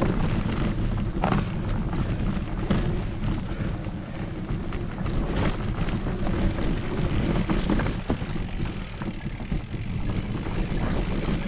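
Mountain bike riding on a dirt forest trail: steady wind rush on the microphone and the rumble of tyres, with frequent irregular knocks and rattles as the bike goes over bumps.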